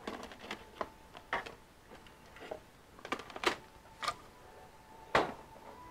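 Irregular light clicks and taps, about ten of them, the loudest about five seconds in, over a faint steady high tone.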